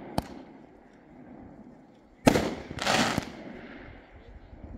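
Crazy Bull consumer firework going off: a small sharp pop just after the start, then a loud bang a little past two seconds in, followed about half a second later by a second, longer burst.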